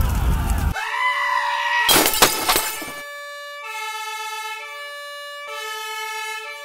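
A noisy background cuts off suddenly under a second in, followed by a rising tone and a loud burst of noise. Then a two-tone siren alternates steadily between a higher and a lower pitch, changing about once a second.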